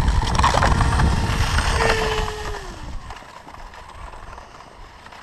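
Electric RC airboat's brushless motor and propeller running under a loud low rush, then throttling back: its whine slides down in pitch about two and a half seconds in and the sound drops to a quieter hiss.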